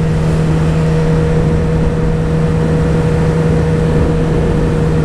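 Kawasaki ZX-10R's inline-four engine held at a steady cruising speed, one unchanging hum, under an even rush of wind noise.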